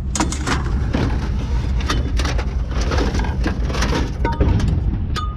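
Scrap metal being unloaded: repeated clanks and crashes of metal pieces landing on a pile, over a steady low engine rumble.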